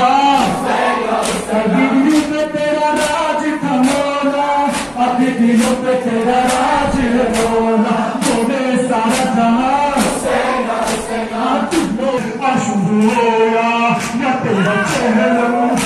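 Urdu noha sung by men's voices, with the gathering chanting along. Under it runs a steady beat of matam, hands striking chests in unison a little faster than once a second.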